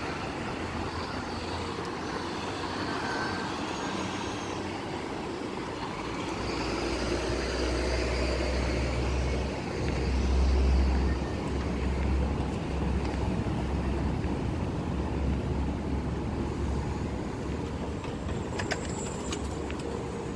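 Road traffic on a busy multi-lane city street: cars and trucks passing steadily. A heavier low rumble swells about six seconds in, is loudest around ten seconds, and eases off near the end.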